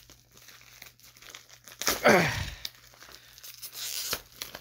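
Black plastic poly mailer crinkling and tearing as it is pulled open by hand, its tape being torn off. About two seconds in comes a short sound whose pitch falls steeply, the loudest moment.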